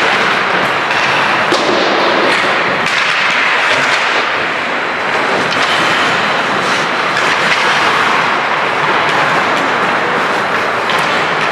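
Ice hockey play on a rink: a steady rush of skate blades on the ice, with a few sharp knocks of sticks, puck or boards.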